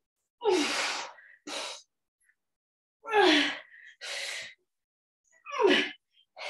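A woman breathing hard under exertion while heaving a dumbbell overhead. Three forceful, voiced exhales, each falling in pitch and followed by a shorter, quieter breath, come about every two and a half seconds in time with the lifts.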